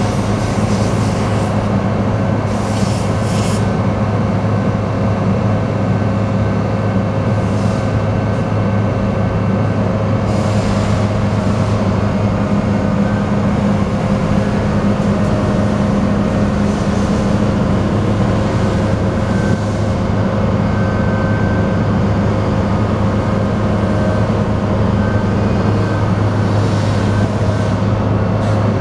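Terex Fuchs MHL340 material handler running steadily under load, its diesel engine and hydraulics working as the boom is lowered and folded back up. A constant low hum with a thin steady whine over it, and short hissing bursts now and then.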